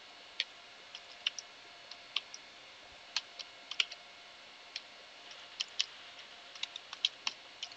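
Computer keyboard typing: irregular keystroke clicks in short runs with brief pauses, as a terminal command is typed.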